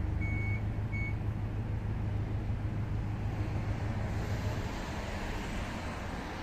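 A vehicle's reversing alarm beeps twice, evenly spaced, within the first second over the steady low hum of its running engine. The hum fades about four and a half seconds in, leaving a broad rushing noise.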